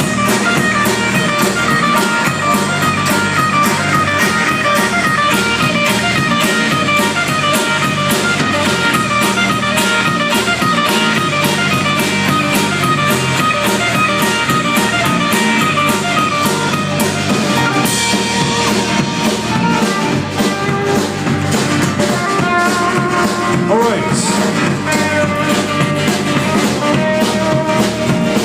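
Gothic rock band playing an acoustic live arrangement: an instrumental passage of guitars over a steady drum beat, with no singing.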